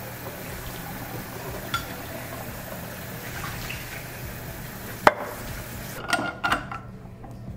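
Juice being poured through a small funnel into a glass bottle: a steady pouring that stops about six seconds in. A sharp clink of glass about five seconds in, and a few lighter clinks after the pour stops.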